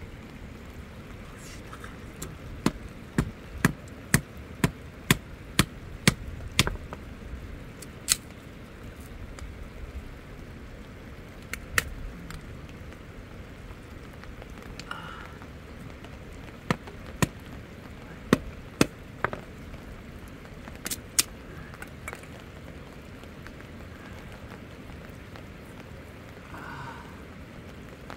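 Hand-held stones knocked together: sharp clicks about two a second for several seconds, then scattered single knocks, over a steady hiss.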